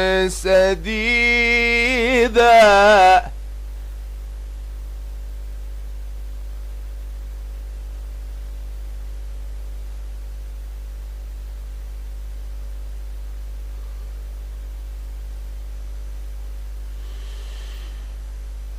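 A male voice reciting the Quran in melodic tajweed style, drawing out the final word "sadidā" with a wavering ornamented line that stops about three seconds in. After that only a steady low hum remains.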